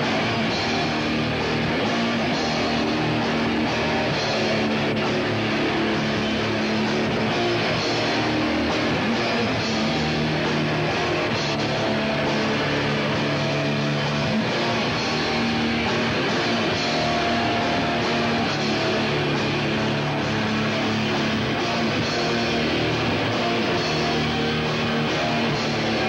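Live rock band playing loudly and without a break: electric guitars over a drum kit.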